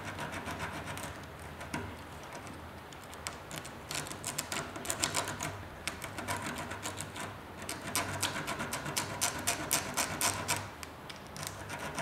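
Quick, rapid scratching and scrubbing strokes on a radiator core, in two busier spells, as the metal around pinhole leaks is cleaned up before soldering.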